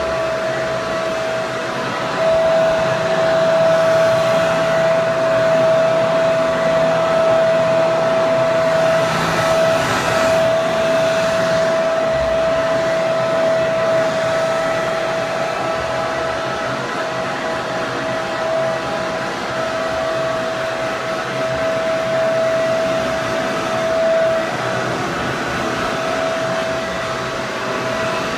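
Hair dryer running steadily: a constant rush of blown air with a steady motor whine over it.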